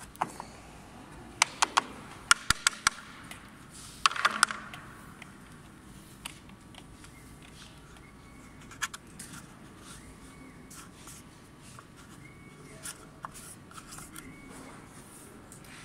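Hand-handling of a CNC-cut black puzzle-shaped piece on the router's grooved table: a quick run of sharp taps and clicks, then a short scrape about four seconds in, then only occasional faint clicks.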